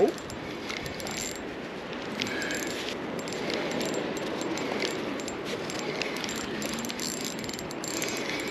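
Spinning reel being worked against a hooked fish: a steady rattling whir of the reel, dense with fine clicks, with the drag set loose.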